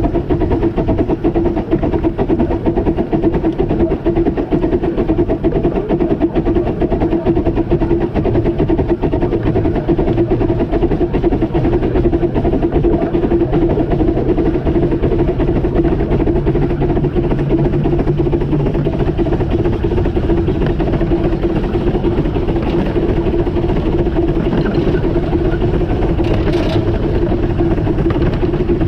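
15-inch gauge steam train running along the line behind its locomotive: a steady, unbroken running noise of the train on the track, with an even hum throughout and a short sharp noise near the end.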